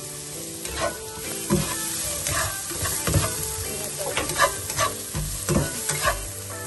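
Chopped onions and green and red chilies sizzling in a nonstick frying pan. A spatula stirs them, scraping and tapping against the pan about ten times.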